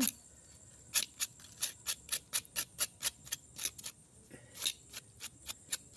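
Sharp irregular clicks and crackles, about three or four a second, from a wood cooking fire and a knife scraping the burnt skin off a fire-roasted yam.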